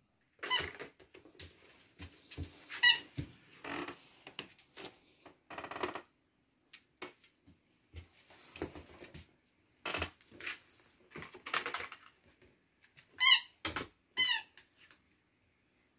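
Dog pawing and rummaging at a wooden cabinet, a run of short scraping and rustling noises, with brief high squeaks about half a second in, around three seconds in, and twice near the end.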